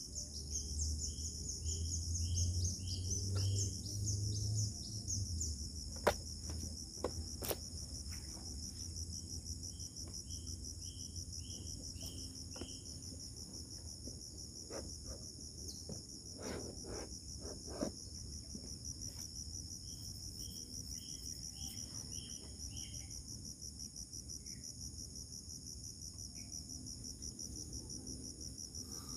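Steady, pulsing insect chorus of crickets. Three times a short series of about six quick high notes repeats, and a few clicks and knocks come around a quarter of the way in and again just past halfway, over a low rumble in the first few seconds.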